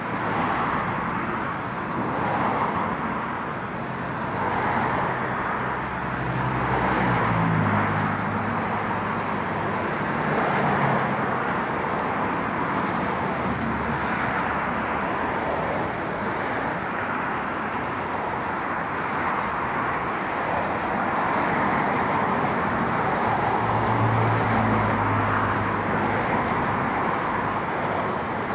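Road traffic crossing the Mid Hudson Bridge: a steady rush of passing cars. A lower engine drone from a heavier vehicle passes about seven seconds in and again about twenty-four seconds in.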